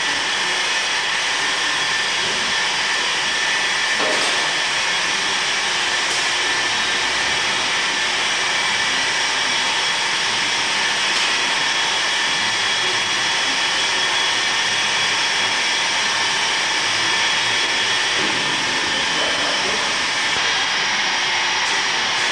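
Small electric pump running steadily, a constant whine over a hiss, drawing whey off the curd in a cheese vat.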